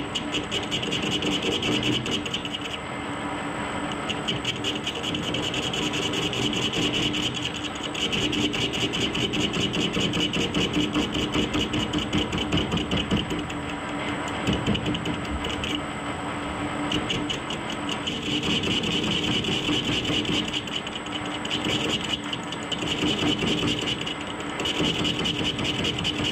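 Metal lathe turning down the outside diameter of a rough cast wheel rim: a steady motor hum under a fast, rhythmic scraping of the cutting tool. The scraping eases off and comes back several times through the cut.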